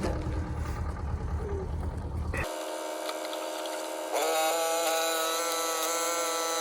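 An engine running steadily for about two and a half seconds, then an abrupt cut to a sustained drone of many held tones that swells about four seconds in.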